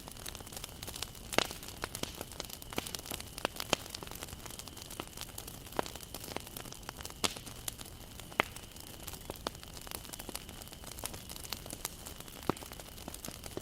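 Wood fire crackling: irregular sharp pops and snaps from burning wood over a steady hiss, with a few louder pops about a second and a half in and around seven and eight seconds in.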